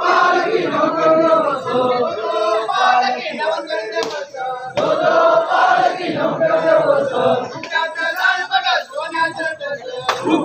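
A crowd of men chanting and shouting together in unison, loud and continuous, with a short break about four seconds in.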